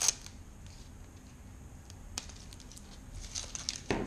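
Thin plastic wrap peeled off a small plastic gadget with a sharp crinkle at the start, then light rustles and clicks of packaging being handled, and a louder knock near the end.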